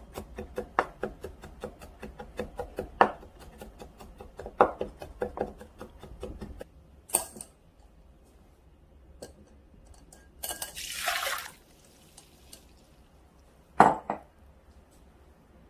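A kitchen knife rapidly mincing garlic on a wooden cutting board, a quick run of chops for about six seconds. Then a clink, a second or so of water splashing as sprouts are washed in a glass bowl, and near the end a metal strainer clinking against the glass bowl.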